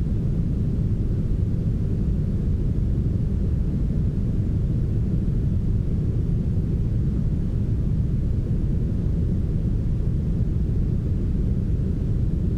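Steady brown noise: an even, deep hiss with nearly all its energy in the low end and the highs rolled off, unchanging throughout.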